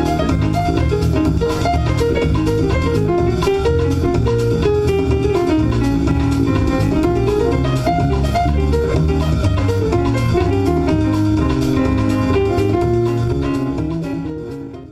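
Instrumental background music with a steady beat and a melody line, fading out near the end.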